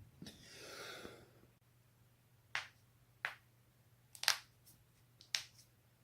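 Joints cracking: four sharp pops about a second apart, the third the loudest and doubled, with a few fainter ticks between them, after a short rustling hiss near the start.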